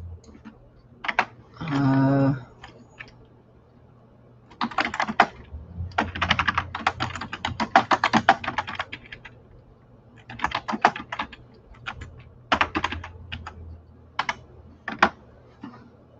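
Typing on a computer keyboard: quick flurries of key clicks, with pauses between them.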